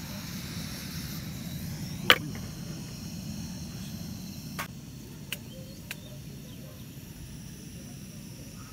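Remote-canister butane-propane camping stove burning steadily with a low rumbling hiss. A sharp metallic knock about two seconds in, as the aluminium pot goes onto the stove, and a few light clicks after it.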